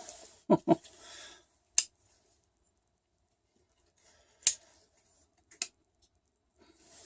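Plastic case of a small handheld digital multimeter being handled and taken apart with a small screwdriver: a few sharp, separate clicks and knocks with faint handling noise between.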